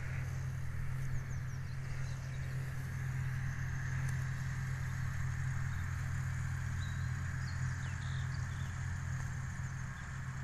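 Massey Ferguson 6465 tractor and Vicon RF 2235 round baler running steadily in the distance, a constant low drone. A few faint bird chirps come through in the middle.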